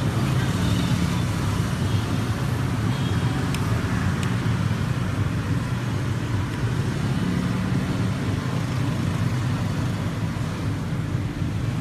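Steady low background rumble, like distant road traffic, with two light clicks about three and a half and four seconds in.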